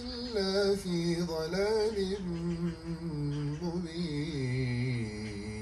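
A man chanting a religious prayer recitation in long, wavering held notes, his pitch drifting lower toward the end.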